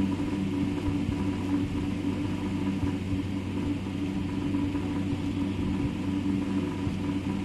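A steady low hum with a buzzing tone, unchanging throughout.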